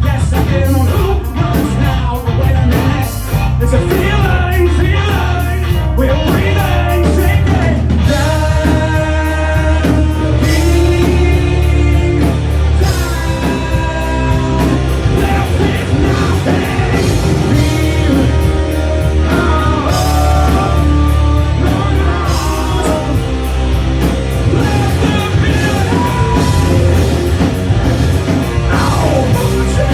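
Live rock band playing loudly through a club PA, with a lead vocal sung over distorted guitars, bass and drums.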